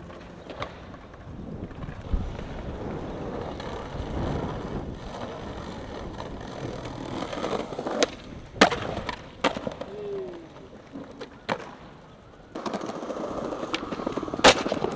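Skateboard wheels rolling over stone paving, broken by several sharp pops and board slaps in the second half, with one loud snap near the end as a trick is popped.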